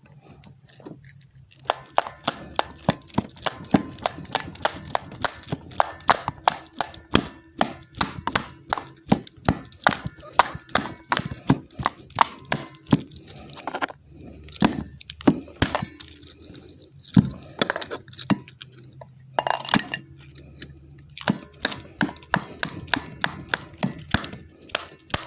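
Rapid, sharp plastic clicks and taps, several a second with a few short pauses, from a remote control's casing being handled and worked on by hand.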